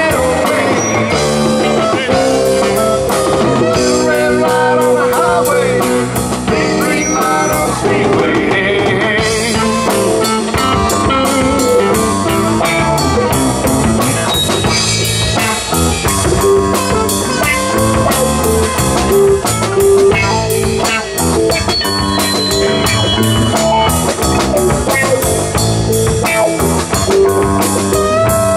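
Live blues-rock band playing an instrumental stretch on electric guitars and drum kit with a steady beat, a lead line bending notes in the first several seconds.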